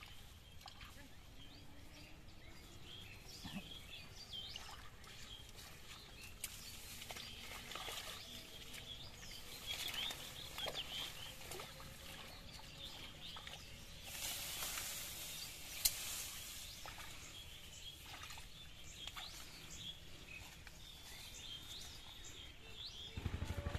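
Faint outdoor ambience of scattered small bird chirps, with soft rustling of grass and leaves as hands work in muddy ground among water plants. A low buzzing drone starts just before the end.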